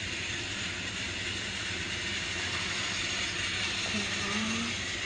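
Small battery-powered motors and gears of toy train engines running steadily along the track.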